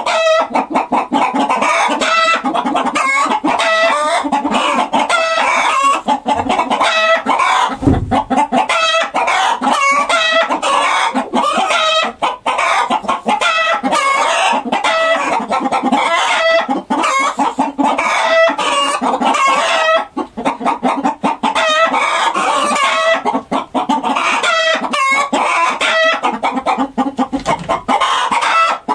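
A flock of chickens clucking, many short calls overlapping without a break.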